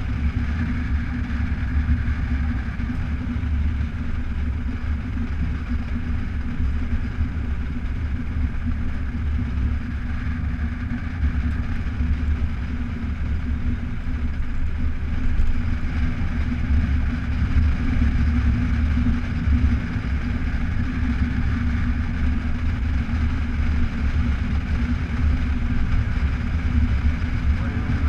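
Motorcycle running steadily at cruising speed on a gravel road, under a deep, constant rumble of wind and road noise.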